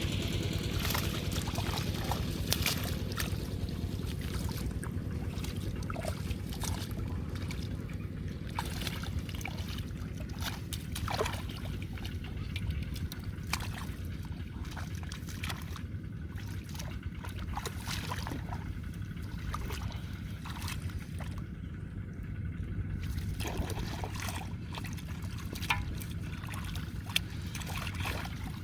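Shallow water trickling and splashing in many short, scattered strokes, over a steady low rumble.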